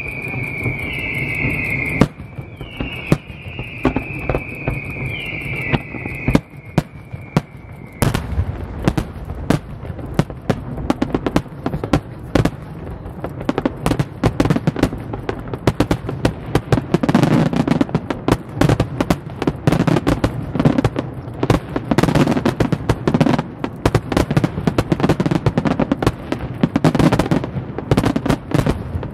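Fireworks display going off. For the first several seconds a high whistle falls in pitch again and again over scattered bangs. About eight seconds in, a dense barrage of bangs, crackling and deep booms begins and keeps going.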